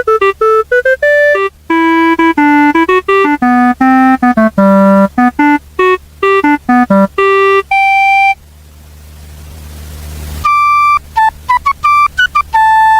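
Casio CTK-245 electronic keyboard playing quick runs of single notes in its built-in tones. A little past the middle the notes stop and a hiss swells up for about two seconds, then the note runs start again.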